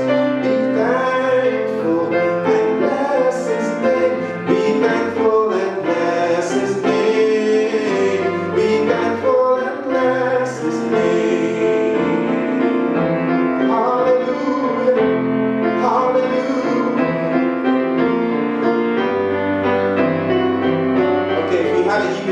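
Electric keyboard playing a slow gospel song in a piano sound, held chords changing every second or so.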